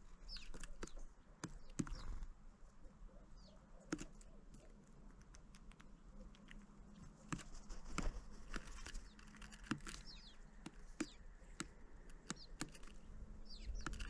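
Small birds at a feeder: irregular sharp taps and clicks, with a few short, high calls that fall in pitch scattered through.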